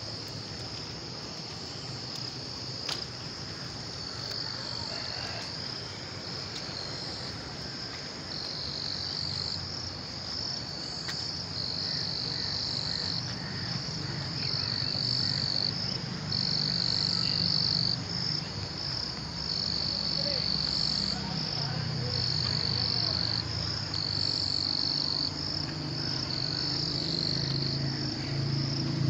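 A steady, shrill chorus of insects, swelling in regular pulses about once a second, with frogs croaking low underneath after heavy rain, louder near the end.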